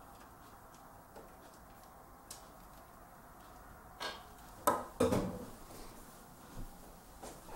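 Handling noise at a computer case: a few faint clicks, then a cluster of louder metallic clicks and a heavier knock about four to five seconds in, with a couple of lighter knocks near the end.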